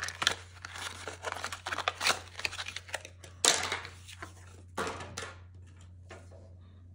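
Plastic packaging crinkling and rustling as it is handled, in a string of irregular crackles that die away near the end.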